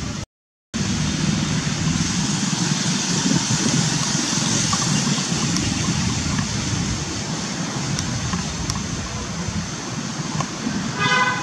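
Steady background noise, a low rumble under a high hiss, that cuts out for about half a second just after the start. A brief pitched sound comes near the end.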